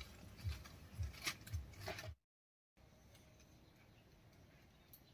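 Thin dry kindling sticks being handled and fed into a clay wood-fired stove as it is lit: dull knocks about twice a second with a couple of sharp cracks. After a brief cut there is only a faint steady background with a few light crackles.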